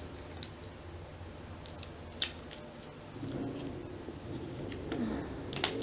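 Mussel shells clicking as they are handled and pried open while eating, a few sharp separate clicks over several seconds; a low hum comes in about halfway through.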